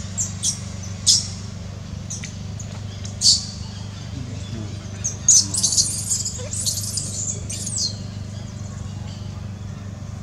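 Baby macaque giving short, high-pitched squealing cries: a few single cries, then a quick run of them about five seconds in.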